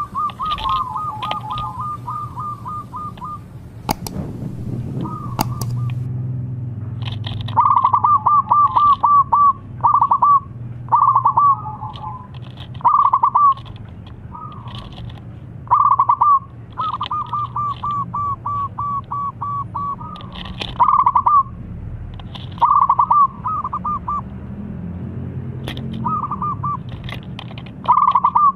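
Zebra dove (perkutut) cooing in full song: phrases of quick staccato coo notes, repeated every second or two, over a steady low hum. Two sharp clicks about four and five seconds in.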